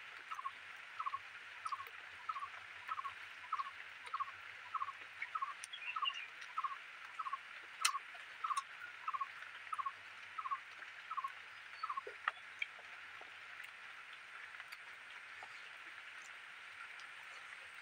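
An animal's short call at one pitch, repeated about three times a second and stopping about eleven seconds in, over a steady high hiss.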